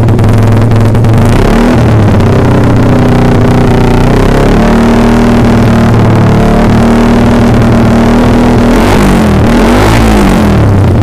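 Suzuki Satria FU 150 Fi single-cylinder engine running loudly through an aftermarket R9 GP racing exhaust, revved up and down a few times near the end.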